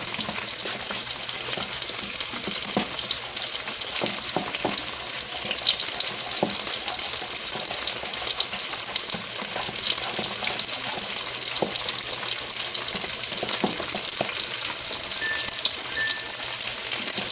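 Beaten eggs frying in hot oil in a wok: a steady sizzle with many small crackles and pops.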